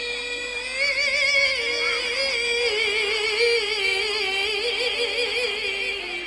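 A woman's voice in melodic Qur'an recitation (tilawah) draws out one word in a long melisma. She holds a steady note, then sings a wavering, ornamented line that steps slowly lower and ends just before the close.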